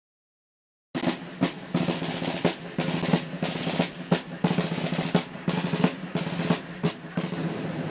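Marching snare drum played solo with sticks: a fast cadence of rolls and sharp accented strokes, starting about a second in.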